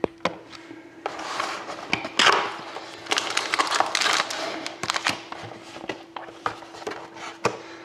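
Cardboard and plastic packaging of a trading-card box being handled and opened: irregular scratchy rustling and scraping with many small sharp clicks, under a faint steady hum.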